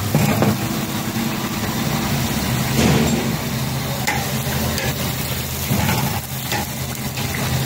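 Fish frying in a large karahi of hot oil, a steady sizzle, over the steady low hum of an idling engine, with a few brief knocks.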